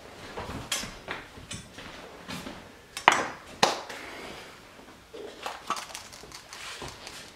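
Kitchen knife and utensils being handled on a wooden cutting board: scattered light clicks and taps, with two sharp knocks a little after three seconds in as the chef's knife is set down on the board.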